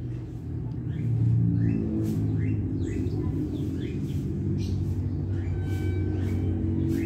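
Steady low mechanical rumble, like a running engine, with brief high chirps from small birds scattered over it every second or so.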